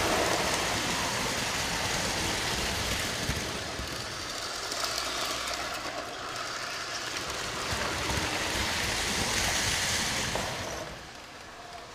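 Model train running on a layout's track close by: a steady rumble and rattle of wheels on the rails with the motor's whir. The sound drops off sharply near the end.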